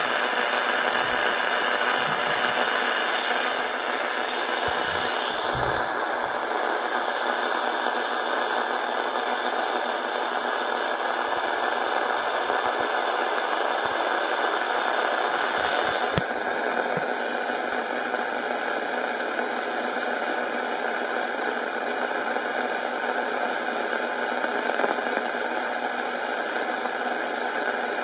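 Steady, loud hiss with no clear pitch, broken by a few soft low knocks in the first six seconds and a sharp click about 16 seconds in.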